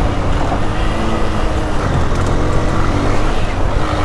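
Motorcycle engine running at steady throttle while riding over a rough dirt road, under a loud, even rushing noise.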